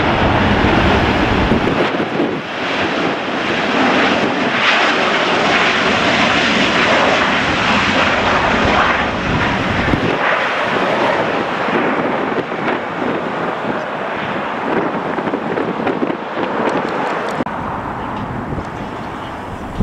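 Airliner jet engines roaring as a plane passes, loudest in the first half and easing off toward the end. Wind buffets the microphone with a low rumble that drops away about two seconds in and again about ten seconds in.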